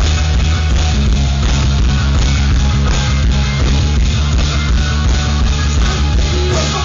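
Live rock band playing loud, bass-heavy music: electric guitars, bass and drums with a steady beat.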